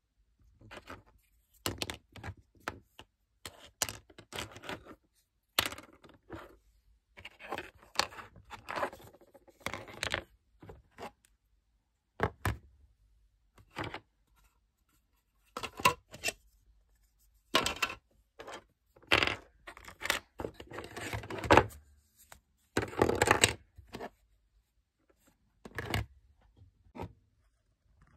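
Hard plastic toy parts being handled, giving irregular clicks, clacks and scrapes with short pauses between them.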